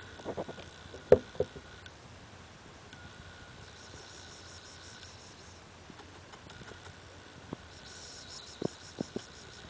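Faint, evenly repeating high-pitched insect chirring that comes and goes, with a few sharp clicks, the loudest about a second in and a cluster near the end.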